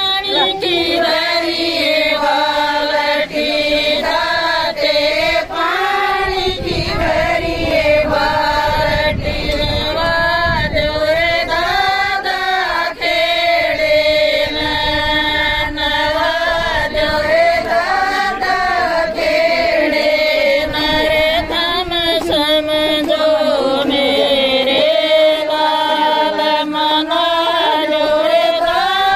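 A group of women singing a celebratory song together in unison, one continuous, wavering melody with no break.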